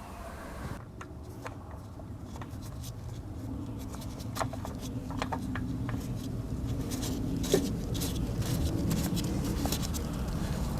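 Hands spinning a new oil filter on snug on an Onan generator: scattered light clicks and scrapes over a steady low rumble.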